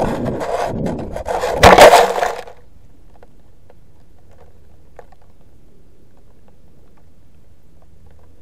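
A model rocket's onboard camera picks up rushing air and rattling as the rocket comes down, then a loud thump and scraping rustle about two seconds in as it hits the ground in dry grass. After that there is only a faint steady hum.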